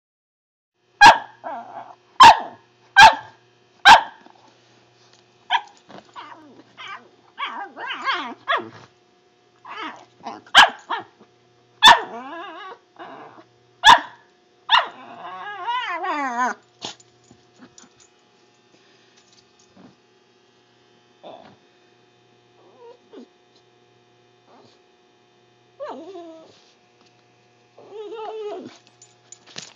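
A dog making weird noises: four loud barks about a second apart, then a string of varied yelps and drawn-out pitched calls that slide up and down, thinning out to a few quieter grumbles near the end.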